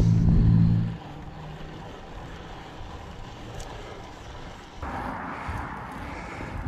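Motorcycle engines passing, a steady hum that stops abruptly about a second in. After that, wind noise on the microphone, growing louder near the end.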